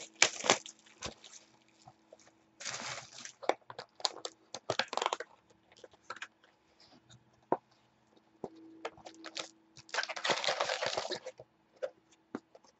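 A shrink-wrapped trading-card box being opened and unpacked by hand: plastic wrap and cardboard rustling, and packs being lifted out and set down on a table. It comes as several bursts of rustling with scattered sharp clicks and taps between them, over a faint steady hum.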